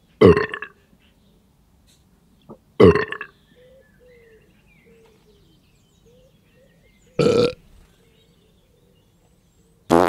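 Three loud, deep burps, each about half a second long: one right at the start, one about three seconds in and one about seven seconds in, with a fourth beginning right at the end.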